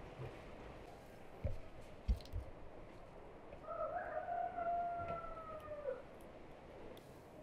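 A rooster crowing once: a single long call of about two seconds, starting a little after the middle, that holds its pitch and drops at the end. A few low knocks come before it.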